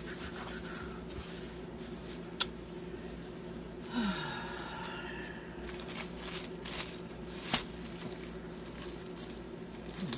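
A rolled-up diamond painting canvas being slid into its clear plastic sleeve: plastic rustling and rubbing, with two sharp taps about two and a half and seven and a half seconds in, and a brief squeaky rub about four seconds in.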